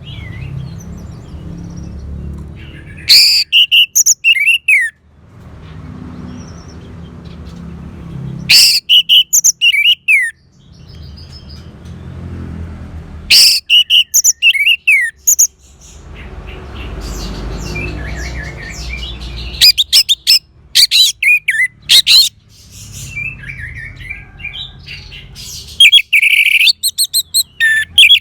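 Orange-headed thrush singing: loud, rapid phrases of high whistled and trilled notes, one about every five seconds, each lasting a second or two. A low rumble runs underneath between the phrases.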